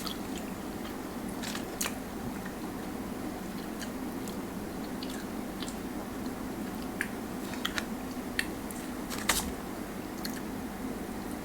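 Close-up mukbang eating sounds: biting and chewing food, with scattered crisp clicks and crunches over a steady low room hum.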